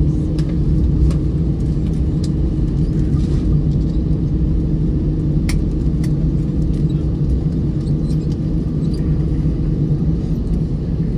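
Steady low rumble inside the cabin of an Airbus A319 rolling on the ground after landing, engines and wheels running. A faint steady hum fades out about ten seconds in, and a light knock comes about halfway.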